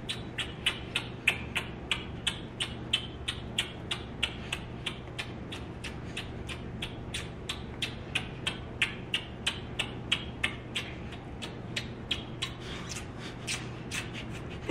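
A couple kissing as fast as they can: short lip smacks in a steady run, about three a second.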